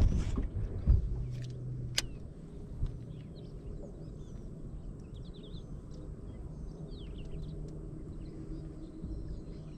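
Birds chirping over a low hum, after several thumps and a sharp knock in the first two seconds.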